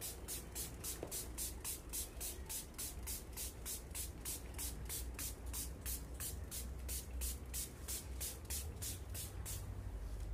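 Hand trigger spray bottle misting houseplant leaves with a coffee-and-water mixture: a quick, even run of short hissing sprays, about four a second.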